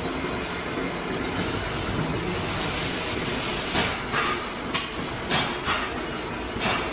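Metal lathe running, a large metal cylinder turning against a roller tool on the tool post: a steady machine hum and hiss, with a series of short hissing bursts in the second half.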